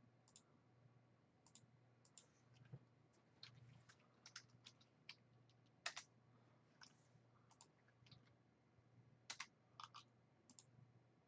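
Faint, irregular clicks and taps from a computer keyboard and mouse, a dozen or more scattered through, with a few slightly louder ones.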